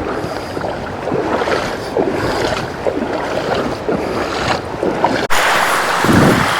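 Legs wading through a shallow creek, water sloshing and splashing in an uneven rhythm with each step. About five seconds in the sound cuts off abruptly to a steadier hiss of running water.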